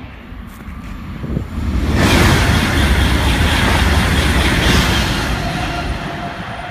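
TGV high-speed train passing at speed on a high-speed line. A rush of wheel and air noise comes on sharply about two seconds in, holds for about three seconds, and fades as the train draws away.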